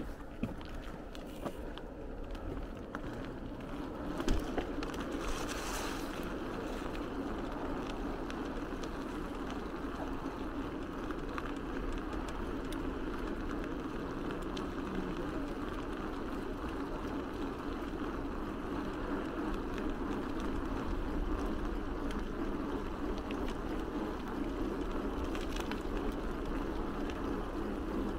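Steady rolling noise of a bicycle ridden along city streets, tyres and wind, with a few sharp clicks in the first seconds and a brief hiss about five seconds in.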